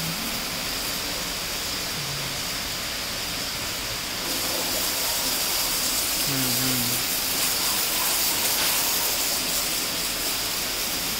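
High-pressure cleaning pump's spray gun jetting water onto a rubber floor mat, a steady hiss that gets a little louder about four seconds in.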